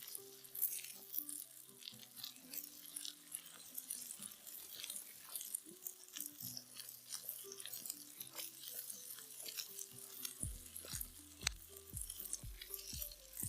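Soft background music with a slow melody, joined by a steady low beat about ten seconds in, over a constant scatter of crisp crackles and crunches.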